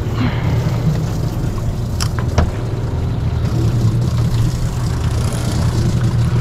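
A boat's engine running steadily with a low drone, with water rushing along the hull. Two light clicks come about two seconds in.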